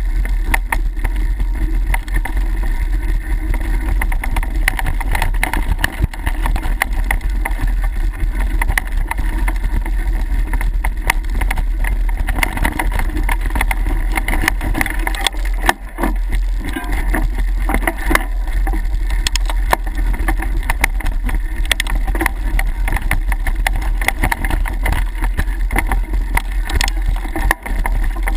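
Mountain bike riding fast down a dirt singletrack: steady wind rumble on the microphone with constant rattling and knocking as the bike bounces over roots and bumps.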